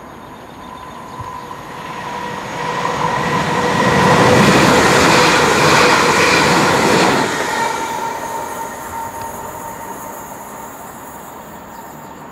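Electric passenger train passing at speed: the rush of wheels on rails swells up, is loudest for a few seconds in the middle, then fades away, with a faint steady ringing tone under it.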